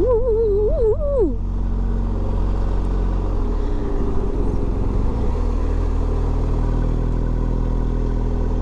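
A BMW R1250GS boxer-twin engine running steadily at riding speed, with wind and road noise; its note shifts a little partway through. A short wavering vocal sound from the rider comes in the first second or so.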